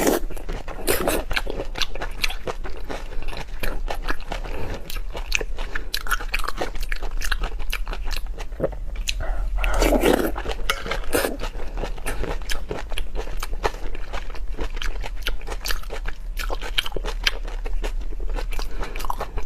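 Close-miked chewing and biting of raw shrimp: a dense, irregular run of crisp clicks and wet mouth sounds, with a fuller, wetter bite about ten seconds in.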